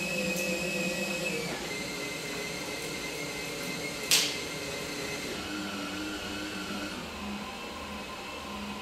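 DeWalt cordless drill driving a Lil Buddy Mongoose windshield cut-out winder, its motor whining steadily as it reels the cutting line through the urethane. The pitch drops about a second and a half in and shifts again later as the load changes, and there is one sharp click about four seconds in.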